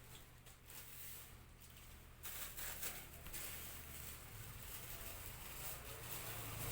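Faint, uneven rustling and handling noise, typical of a jersey and its packaging being handled, over a low steady hum.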